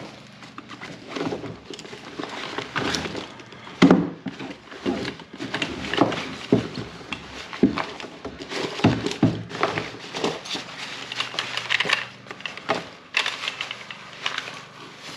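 Handling noise of a folded Cliq compact camping chair and its fabric strap: irregular rustling with clicks and knocks, the sharpest knock about four seconds in.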